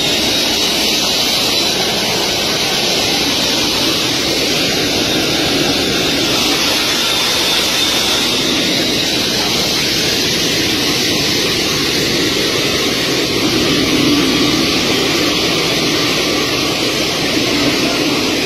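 Military transport jet's turbofan engines running close by: a loud, steady rush with a faint high whine that slowly shifts in pitch.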